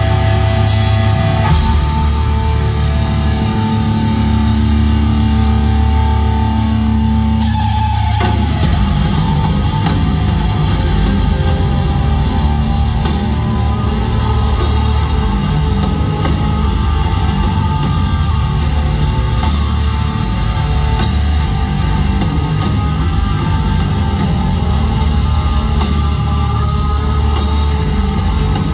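Live heavy rock band playing an instrumental passage on electric guitar, bass and drum kit, heard through arena amplification. Held, ringing notes give way about eight seconds in to denser, heavier low playing with cymbal crashes.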